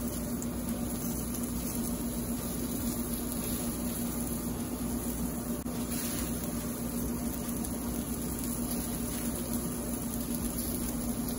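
Chicken frying in hot coconut oil in a pan, giving a steady sizzle with a constant low hum beneath it.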